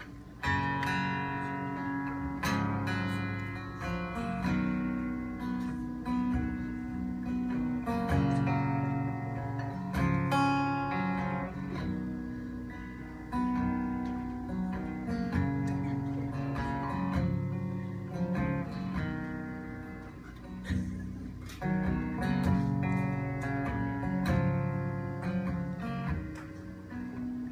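Cutaway acoustic guitar played solo: an instrumental intro of strummed chords, each struck every second or two and left to ring.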